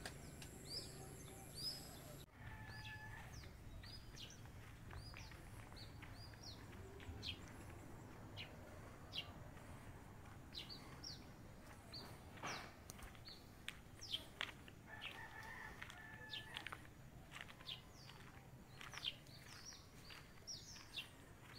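Faint outdoor birdsong: many short, high chirps from small birds scattered throughout, over a steady low hum. Twice, near the start and about fifteen seconds in, a longer held call from a distant rooster crowing.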